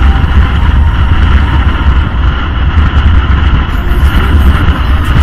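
Wind buffeting the microphone of a motorcycle riding at highway speed, a heavy, uneven rumble, with engine and road noise beneath it.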